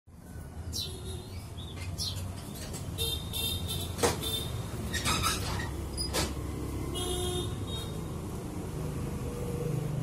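A few short, sharp high-pitched squawks and chirps from an Alexandrine parakeet, the loudest about four seconds in, over a steady low rumble of road traffic.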